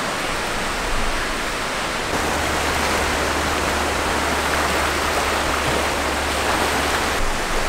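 Surf washing onto a sandy beach: small waves breaking in the shallows, making a steady rush of water.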